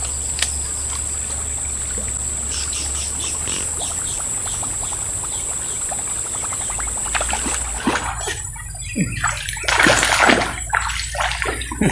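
A small hooked snakehead thrashing and splashing at the water's surface on the line, a dense run of fine splashes, with a few louder splashes near the end.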